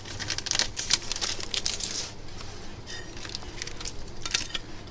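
Crinkling plastic film and light irregular clicks and ticks as the phone's front glass and its adhesive sheet are handled.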